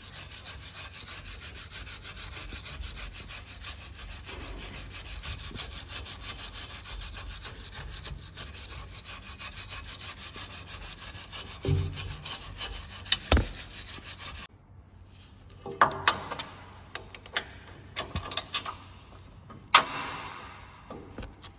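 Steady abrasive scrubbing of the vehicle's chassis surface where the power steering bracket mounts, cleaning it so the bracket can sit flat. The scrubbing stops suddenly about two-thirds of the way through, and a few knocks and short scrapes follow.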